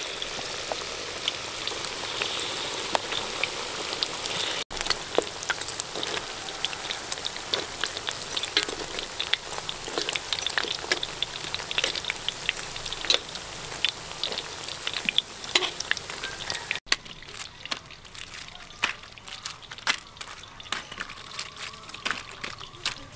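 Battered pork ribs deep-frying in hot oil in a wok: a steady sizzle with many crackling pops. After about 17 seconds it drops to a quieter sizzle with fewer, scattered crackles.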